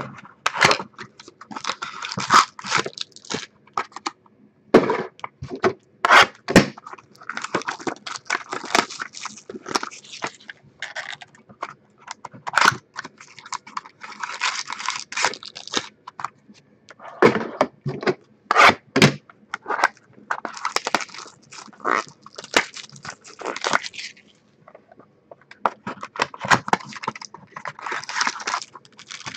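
Trading card packaging being handled and opened: wrappers crinkling and tearing in repeated spells of a second or more, mixed with sharp clicks and knocks of cardboard and cards.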